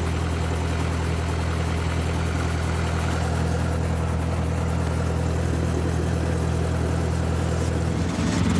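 Helicopter engine and rotor running steadily at a low, even drone, heard from inside the cockpit; the sound shifts and gets a little louder about eight seconds in.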